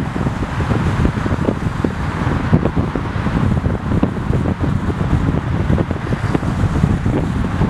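Wind buffeting the microphone of a moving car, with irregular low thumps over steady road noise.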